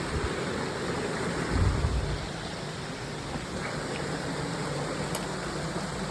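Stream water rushing steadily over a small waterfall cascade, with a brief low rumble of wind or handling on the microphone about one and a half seconds in.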